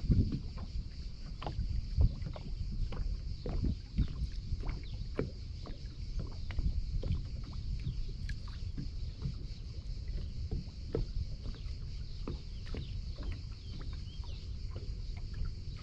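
Small waves lapping and slapping against the hull of a bass boat sitting on open water, with irregular light knocks, over wind buffeting the microphone.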